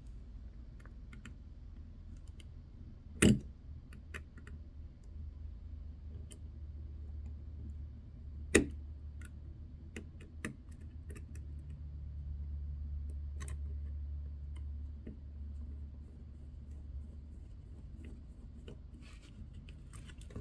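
Small metal watch-repair tools clicking and tapping against a watch movement, scattered light clicks with two sharper ones about three seconds in and again about eight and a half seconds in, over a steady low hum.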